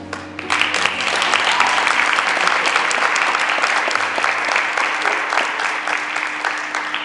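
Audience applauding, the clapping breaking out about half a second in and starting to thin out near the end.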